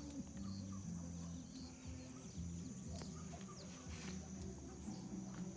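Outdoor field ambience: birds chirping, a steady high insect drone, and a low hum that shifts in pitch from time to time, with a few faint clicks.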